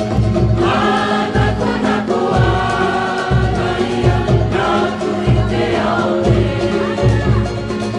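A group of voices singing together over a steady deep bass beat, about one beat a second.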